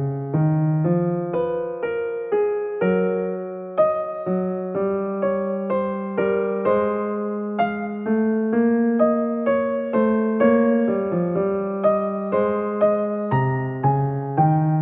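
Soft background music: a steady run of struck notes and chords, each one starting sharply and fading away.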